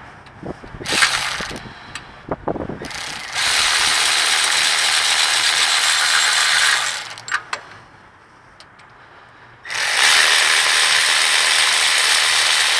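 Milwaukee cordless ratchet spinning through a swivel socket, backing out the rear hub bearing's 18 mm bolts. It starts with a short blip about a second in, then two long steady runs of about four seconds each.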